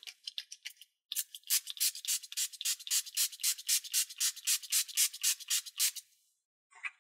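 Aquabeads spray bottle misting water onto a bead design to fuse the beads, in rapid hissing spritzes. A few light squirts come first, then a steady run of about five a second for about five seconds.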